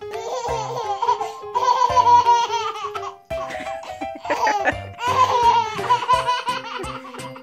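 A baby laughing, over background music.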